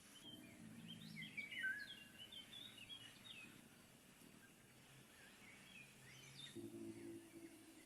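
Faint bird chirps, a quick run of short twittering calls in the first half and a few more near the end, over a low steady hum.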